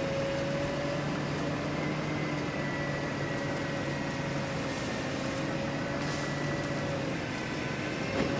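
A machine engine running at a steady, even hum, with a single sharp click about eight seconds in.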